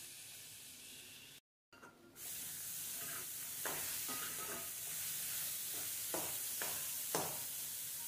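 Black chickpeas and onions sizzling in a metal pan while a spatula stirs them, scraping against the pan half a dozen times. The sound drops out briefly about a second and a half in, and the sizzle comes back louder.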